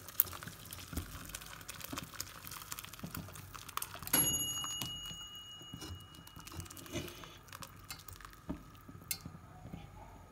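Thick tomato soup poured into a stainless steel mesh strainer over a saucepan: soft pattering and splashing with small metal clinks. About four seconds in there is one sharp metal clink that rings briefly.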